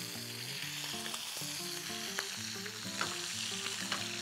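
Chicken legs sizzling steadily as they sear in hot oil in a heavy thick-bottomed pan, with a few light clicks of metal tongs as the pieces are turned.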